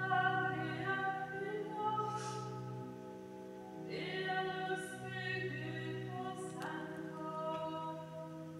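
Voices chanting a psalm in Italian as liturgical chant, in long held notes that step from pitch to pitch, with low held notes sounding beneath.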